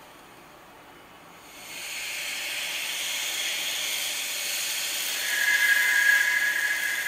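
A hissing noise from a horror drama's soundtrack swells in about a second and a half in and holds steady, with a high, steady eerie tone joining about five seconds in.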